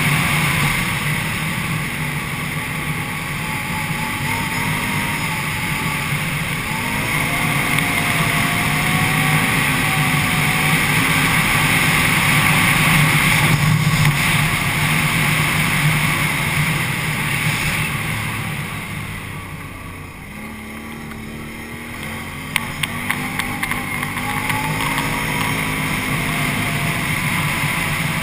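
Can-Am Renegade 800 ATV's V-twin engine running under way at speed, its pitch rising and falling with the throttle. It eases off about two-thirds through, then picks up again, with a few sharp clicks just after the dip.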